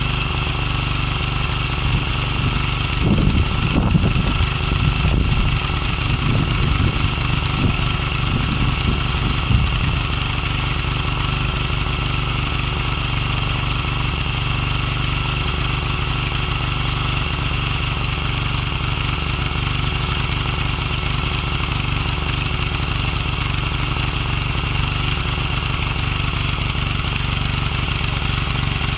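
Ecomax 12 HP walk-behind tiller's single-cylinder engine running steadily while its rotary tines dig into turf and soil. A louder, uneven stretch comes from about three to ten seconds in.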